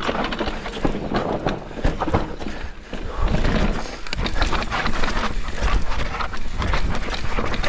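Scott Ransom full-suspension mountain bike descending a rough dirt and rock trail: tyres crunching over loose dirt and stones, and the bike rattling and knocking over the bumps, with a low wind rumble on the camera's microphone.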